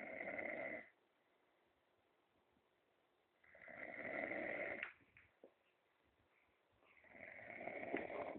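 A man snoring in his sleep: three long snoring breaths, roughly one every three and a half seconds, with quiet gaps between them.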